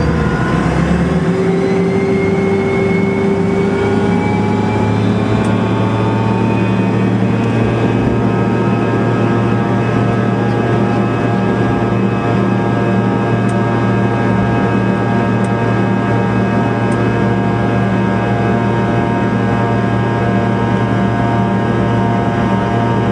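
Fokker 100's Rolls-Royce Tay turbofan engines spooling up for takeoff. A cluster of whining tones rises in pitch over the first several seconds, then holds steady at takeoff power over a loud, even rush.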